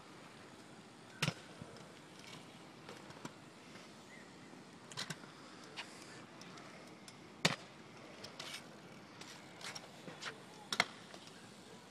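A kick scooter rolling on a concrete skate park surface, with sharp clacks every couple of seconds over a steady faint hiss. The loudest clacks come about a second in, midway through and near the end.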